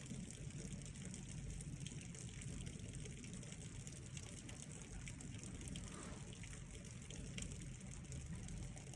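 Steady rain falling, with scattered faint ticks of drops.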